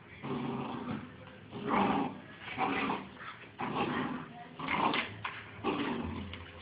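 Bull terrier puppies play-fighting, making a run of short growls, whines and yips, roughly one burst a second.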